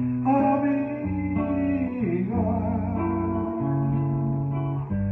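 Backing music with guitar: held chords over a bass line that changes note every second or so, with a melody line that slides down about two seconds in.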